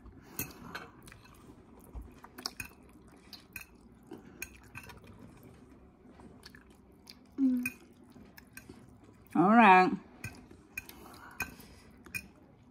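Metal forks clicking and scraping against a ceramic plate of noodles, with soft chewing. A short vocal sound, the loudest thing heard, comes about three-quarters of the way through.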